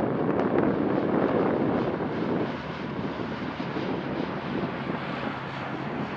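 Wind rushing over the microphone, with the low steady drone of a C-130H's four turboprop engines; the noise eases slightly about two and a half seconds in.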